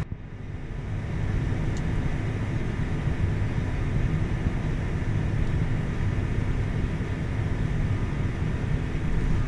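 A vehicle engine running steadily: a low, even drone with a faint steady hum above it.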